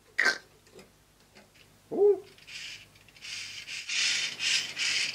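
Plastic model-kit parts being handled and fitted together: a sharp snap just after the start, a short hum-like sound about two seconds in, then a run of pulsing rustling and scraping as the small gearbox parts are worked together.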